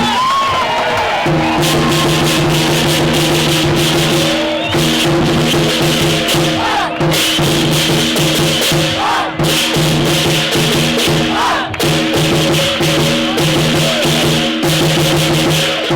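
Background music with a steady beat: sustained low notes chopped in rhythm under shaker-like percussion.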